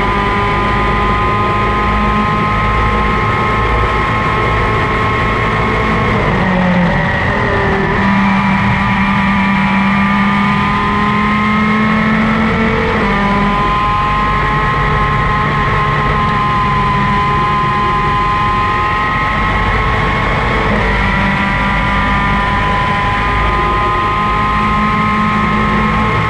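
Superkart's two-stroke racing engine running at high revs, heard onboard over a heavy low rumble. The high engine note holds fairly steady for long stretches and dips briefly about six, thirteen and twenty-one seconds in.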